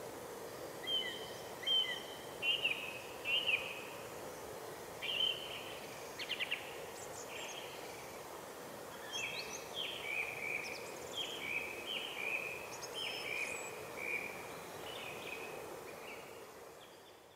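Birds calling in short, high notes over a steady background hiss. A few scattered notes come early, then a longer run of repeated notes, roughly two a second, starts about nine seconds in. The sound fades out at the very end.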